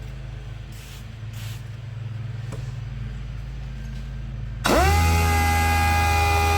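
Random orbital (DA) sander switched on for wet sanding clear coat: about two-thirds of the way in its motor spins up in a quick rising whine and settles to a steady high-pitched run. Before it, only a low steady hum.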